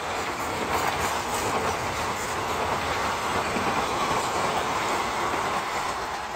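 Coaches of a passenger train rolling past: a steady rumble and rattle of steel wheels on the rails, with clicks running through it.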